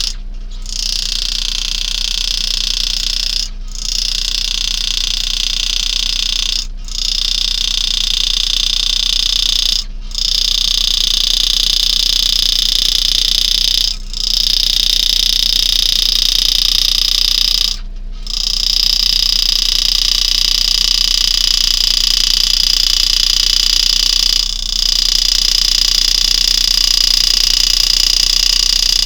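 Power-assisted engraving graver buzzing steadily at a high pitch as it cuts spirals into a coin. It stops for a moment about every three to four seconds, then runs without a break near the end.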